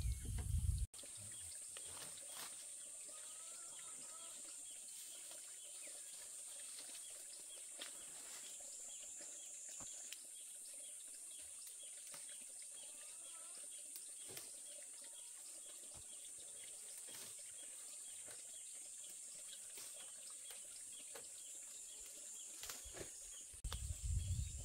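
Steady high-pitched insect chorus, with a few faint bird chirps and soft clicks now and then. A louder low rustle fills the first second and starts again near the end.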